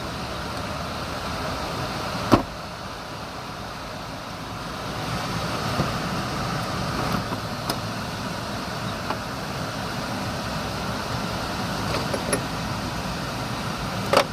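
A Kenworth T800 with a Cat C15 diesel running steadily, heard as an even rushing noise. A sharp click comes about two seconds in, smaller ticks follow here and there, and there are a couple of clicks near the end.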